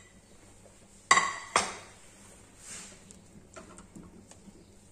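Two clinks of kitchenware about a second in, the first ringing briefly, then faint scraping and small ticks as a wooden spoon stirs a pot of thick oatmeal soup.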